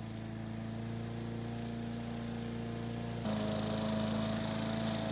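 Small gas walk-behind lawn mower engine running steadily under load, cutting tall grass and weeds. About three seconds in the engine note shifts slightly and gets a little louder.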